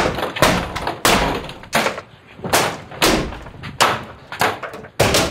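A rapid run of heavy bangs and crashes, about nine in all, one every half second to second, each followed by a short clattering ring, as junk and objects are thrown and smashed around a cluttered room.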